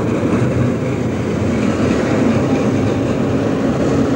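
Tram passing close by on street track: steady rolling noise of the wheels on the rails, with a low steady hum.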